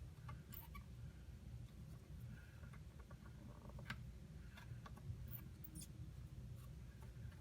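Faint scattered small clicks and taps of soldering tools working on a circuit board, over a low steady hum.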